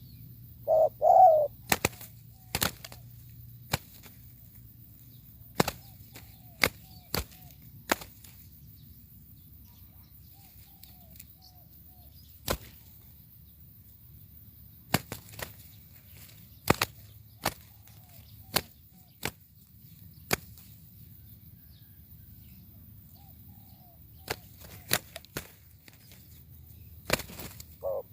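Spotted dove cooing, a short loud phrase about a second in and again at the end, with scattered sharp clicks or snaps and faint chirps from other birds in the quiet between.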